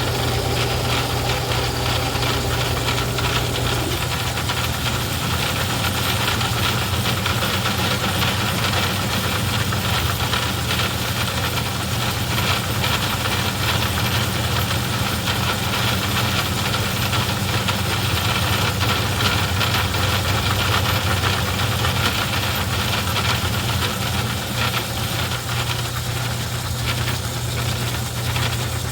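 Craftsman 109 metal lathe running, its motor humming steadily under a continuous rough mechanical noise. A higher steady whine drops out about four seconds in.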